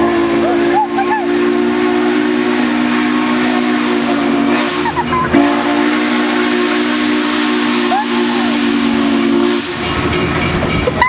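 Steam locomotive's chime whistle blowing two long blasts, the first about five seconds long and the second about four, with a brief break between them, over a steady rushing hiss.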